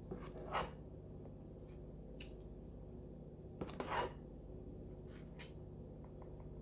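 Faint scraping of metal spoons against each other and the pan as thick, fudgy barfi mixture is scooped and pushed into a silicone mould, with one short scrape about half a second in and a louder pair near four seconds in, over a low steady hum.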